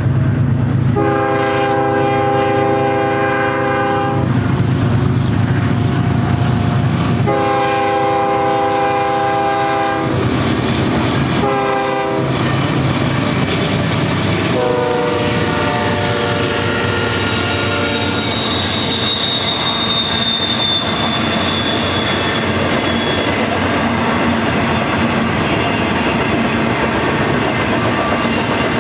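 BNSF diesel freight locomotive's air horn sounding the grade-crossing signal: two long blasts, a short one, then a long one that dips slightly in pitch as the locomotive passes. Behind it the double-stack train rumbles by, its wheels clicking over the rail joints, with a thin high wheel squeal about two-thirds of the way through.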